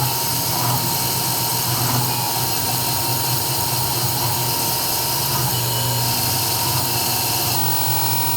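CNC 3040 router's spindle running steadily with the bit engraving, a continuous machine whine over a low hum.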